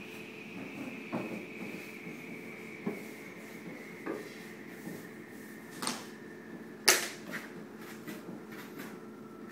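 Hands pressing and smoothing freshly pasted washi paper onto a wooden fusuma door panel, with light knocks and taps against the panel every second or so and one sharper knock about two-thirds through. A steady hum with a faint high whine slowly dropping in pitch runs underneath.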